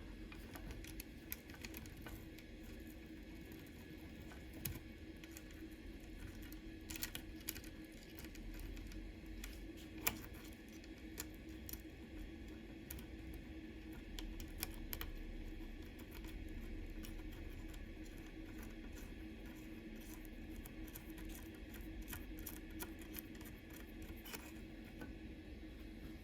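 Scattered light clicks and taps of small metal tools and bicycle brake parts being handled during hands-on brake work, over a faint steady hum.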